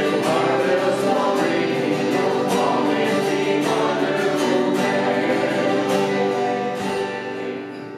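A choir singing a gospel song with guitar accompaniment, the music fading away near the end.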